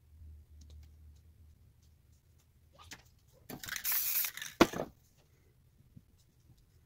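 Aerosol spray paint can spraying one short hiss of about a second and a half, past the middle, with a sharp click near its end. Faint scratches and ticks of a small tool on the painted board come before and after.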